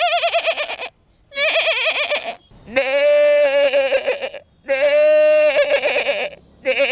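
A man imitating animal and bird calls with his voice, hands cupped over his mouth. There are two short warbling trills, then two long wavering calls of nearly two seconds each, and another short trill near the end.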